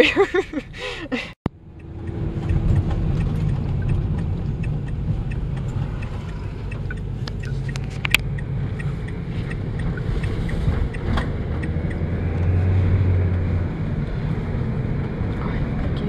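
Steady low rumble of a van's engine and tyres heard from inside the cab while driving through town, with a stronger low hum for a second or so near the end.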